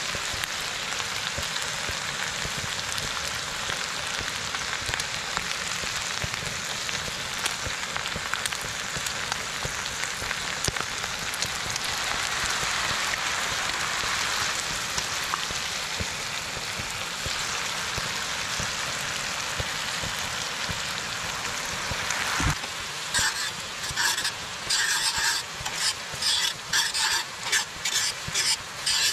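Ground pork and green onions sizzling steadily in a cast-iron skillet. About 22 seconds in, metal tongs start stirring and scraping the meat around the pan in quick repeated strokes, louder than the sizzle.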